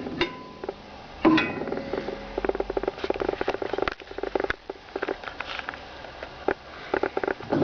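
Home-made brick-making machine clattering as it is worked: scattered knocks and scraping, with a fast rattle from about two seconds in to four and a half.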